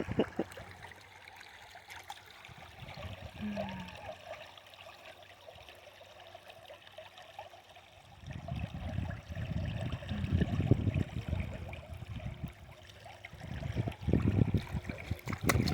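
Small stream of water trickling steadily. Bursts of low rumble come in about halfway through and again near the end.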